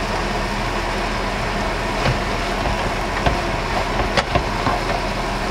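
Steady sizzling of a pan as fried chicken pieces are stirred into a thick yogurt sauce, with a few light clicks of the spoon against the pan.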